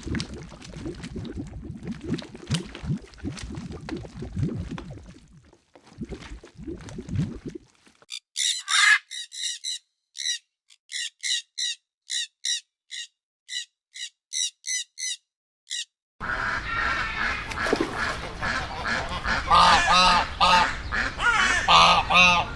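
Three short animal clips in a row. First comes a low, noisy stretch of several seconds; after a cut, a run of short high-pitched chirps at about two a second; after another cut, a group of waterfowl calling over one another, loudest near the end.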